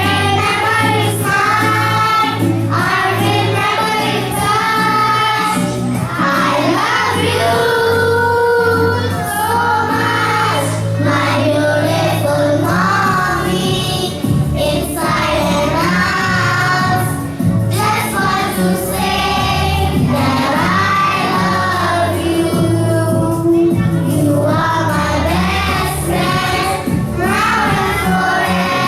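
A song sung by children's voices over an instrumental accompaniment with a steady, repeating bass line.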